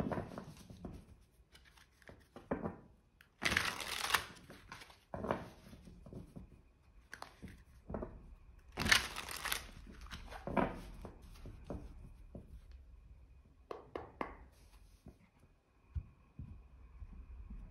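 A deck of tarot cards being shuffled by hand: two louder riffling bursts, about three and a half and nine seconds in, with softer card slides and taps between. A soft knock near the end as the deck is set down on the table.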